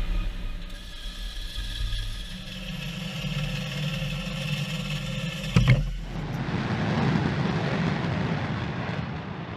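A steady mechanical whine made of several held tones. About five and a half seconds in there is a sharp click, and after it comes the dense, steady noise of an F-16 fighter jet's engine on afterburner during its takeoff run.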